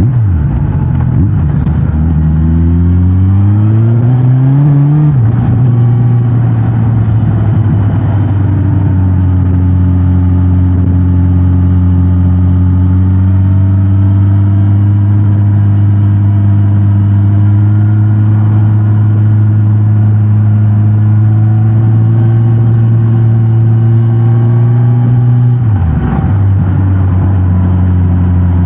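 Suzuki GSX-S1000GT's inline-four engine heard through its stock exhaust while riding. It revs up over the first few seconds, drops back at a gear change, then holds a nearly steady cruise. There is a brief dip near the end as the throttle is rolled off for another shift.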